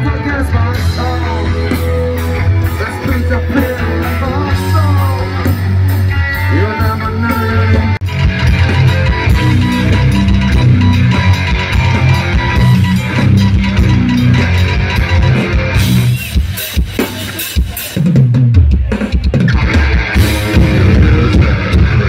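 Live rock band playing loudly through the stage PA, with drum kit, electric guitar and bass, and a singer. About sixteen seconds in the band drops back briefly, then comes back in full.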